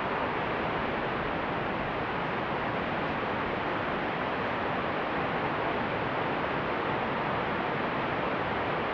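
A river rushing steadily, an even wash of water noise with no change in level.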